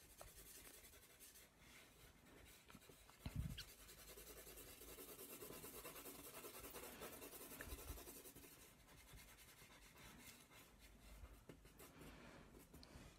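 Faint scratching of a light brown pastel pencil shading on drawing paper, with a soft thump about three and a half seconds in.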